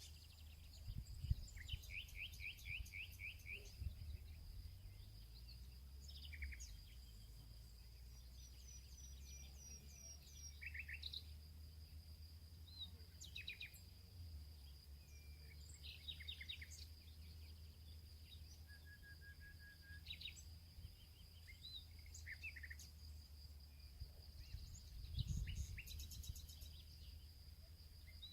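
Faint outdoor ambience: birds chirping in short, scattered calls over a steady high cricket trill, with a low rumble underneath that swells briefly near the end.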